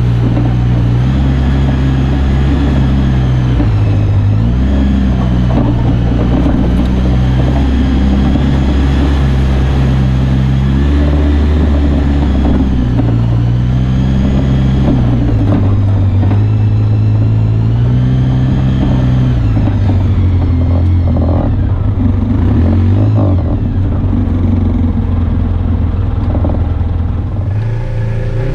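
Off-road vehicle engine (ATV or side-by-side) running under changing throttle while riding. Its pitch steps up and down repeatedly as the rider speeds up and eases off.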